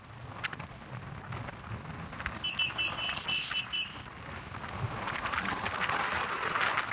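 Wind rush and road noise on a moving motorcycle with the engine running underneath. About two and a half seconds in comes a brief run of rapid, high-pitched beeps, about a second and a half long.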